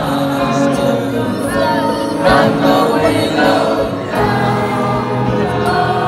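Live concert music over a loud PA: layered sung vocal harmonies held over a steady bass line.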